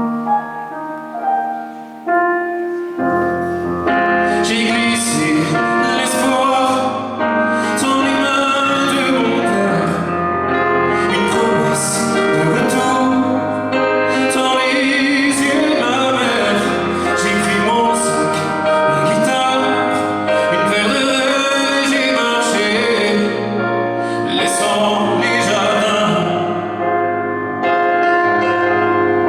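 Live band music: a piano plays alone, then the full band with drums and cymbals comes in about three seconds in, with singing over it.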